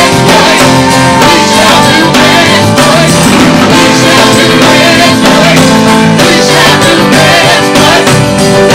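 Live worship band playing on between sung lines, loud and steady.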